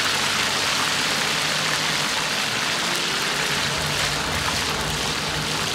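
Flour-coated chicken racks sizzling in a wok of deep-frying oil, a steady dense hiss like rain. This is the second fry, in oil brought back up to high heat to crisp the pieces.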